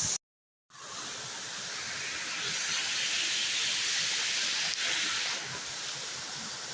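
Waterfall rushing: a steady hiss of falling water that cuts out completely for about half a second near the start, then resumes.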